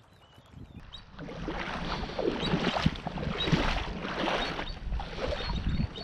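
Shallow sea water sloshing and splashing around the legs of a person wading, with irregular low thuds from the steps, starting about a second in.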